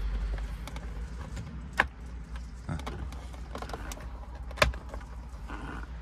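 Plastic steering-column cover being handled and pressed into place by hand: scattered clicks and knocks of the trim clips, two sharper ones about two seconds in and just before five seconds, over a low steady hum.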